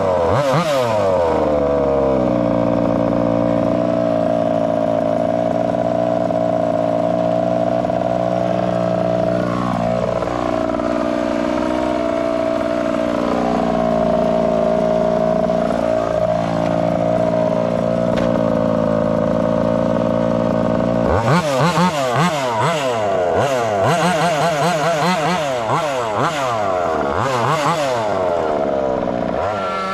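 Taylor RC 35cc two-stroke gas engine of a 1/5 scale RC car: it settles from a rev to an even idle in the first couple of seconds and idles steadily. From about two-thirds of the way through it is blipped in quick repeated revs, climbing into a rev at the very end.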